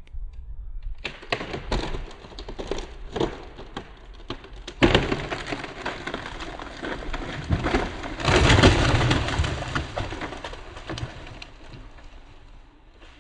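A large tree coming down: a long run of wood cracking and branches snapping, with heavy crashes about five seconds in and again around eight to nine seconds, then dying away.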